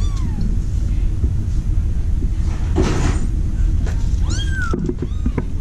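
Cat mewing: a short falling mew at the start and a higher, rising-then-falling mew about four seconds in, over a steady low rumble.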